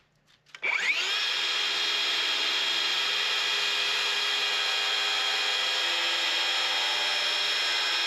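Circular saw winding up about half a second in, then running at a steady, high whine as it crosscuts a rough-sawn milled-lumber board.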